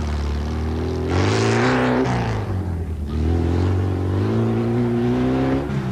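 Off-road race buggy's engine running hard. Its pitch rises about a second in, drops away, then climbs again.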